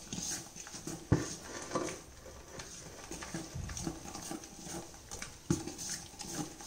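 Steel spoon stirring a thick ragi and urad dal batter in a stainless steel bowl: irregular scraping and knocking of the spoon against the bowl, with the sharpest knock about a second in.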